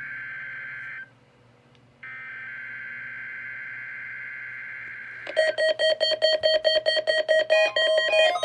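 NOAA Weather Radio required-weekly-test tone signals: a burst of two-tone SAME digital header data, a one-second break about a second in, then another burst. About five seconds in, a much louder electronic alarm takes over, beeping rapidly with several tones at once.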